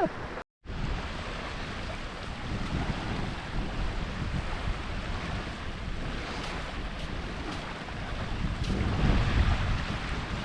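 Wind buffeting the microphone over the steady wash of surf on an open beach, after a brief dropout about half a second in.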